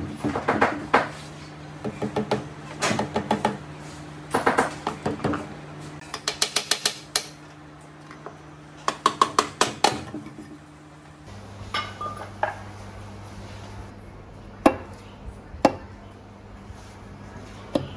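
A hammer tapping on the steel cylinder liner of an RT140 single-cylinder diesel engine block: repeated bursts of quick metallic knocks, several strikes to a burst. A steady low hum runs underneath. About 11 seconds in, the bursts give way to a few single knocks spaced well apart.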